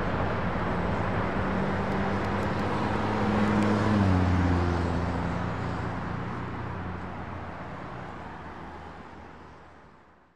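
A transit bus's engine running as it drives past, loudest about four seconds in, where its pitch drops as it goes by, then fading away.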